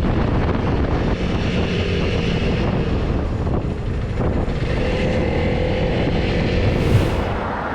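Honda CRF300L Rally's single-cylinder engine running steadily while the motorcycle is ridden, mixed with road and wind noise. A short sharp noise comes near the end.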